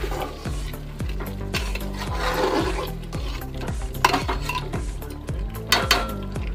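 A metal spatula scraping and knocking against a steel cooking pot as chicken curry is stirred, with two sharper clinks near the end. Background music with a steady beat plays underneath.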